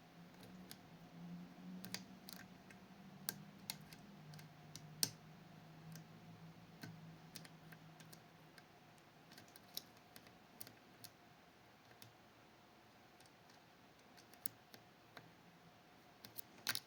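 Faint, scattered small metal clicks and ticks of a pick working the levers of a Fichet 484 lever sidebar lock under tension, with a low hum through the first half.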